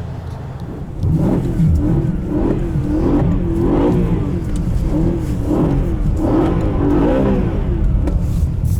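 BMW E92 M3's 4.0-litre V8 revving up and down in quick repeated swells, about one every three-quarters of a second, starting about a second in. The throttle is being worked to slide the car around on ice.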